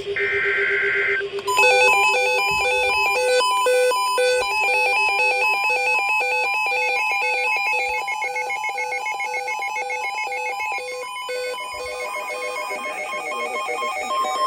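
Emergency Alert System alert tones: a burst of about a second, then a rapid, repeating pattern of electronic beeps at several pitches, ringing like a telephone.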